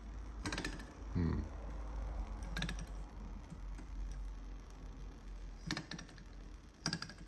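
Five or so brief metallic clicks and light rattles, spaced irregularly, as the flywheel of a small horizontal hot-air Stirling engine is flicked by hand to start it; the engine has not yet caught and run.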